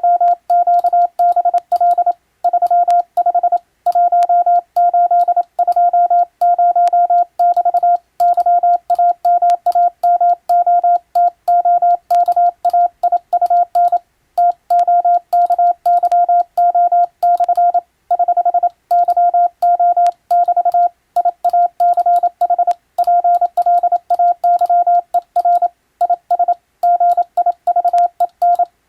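Morse code (CW) being sent: a single mid-pitched tone keyed rapidly on and off in dots and dashes, with brief gaps between groups. The text is English-language telegram practice.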